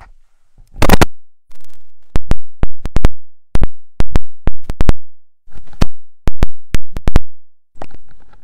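Microphone handling noise. A scraping rub about a second in, then a string of loud, sharp, irregular clicks, several a second, as a clip-on microphone is handled and unclipped from a robe.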